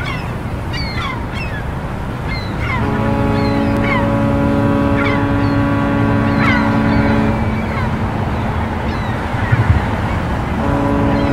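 A ship's horn sounds a long steady blast from about three seconds in to about seven seconds, and starts again near the end, over a constant low engine rumble. Short falling chirps of birds are heard during the first seven seconds.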